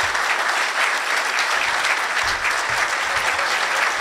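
Audience applauding steadily at the end of a speech.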